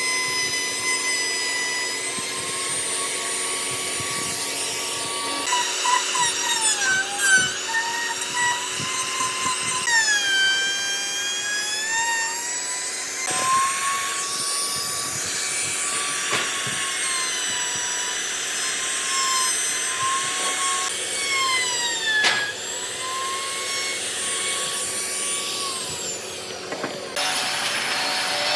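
Hand-held electric power tool working hardwood: a motor whine that sags in pitch and recovers as the tool is pressed into the wood, over a rasping noise of wood being cut or abraded. The whine jumps abruptly several times.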